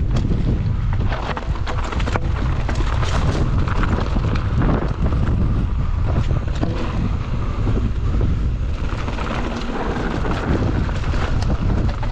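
Wind buffeting the microphone of a mountain bike's camera, with a constant run of small clicks and knocks from the bike and its tyres on a rough trail.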